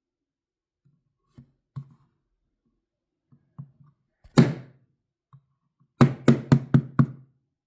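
Sharp knocks on a hard surface: a few light taps, one hard knock about four seconds in, then a quick run of five near the end. They are struck to try to set off a glass-break sensor.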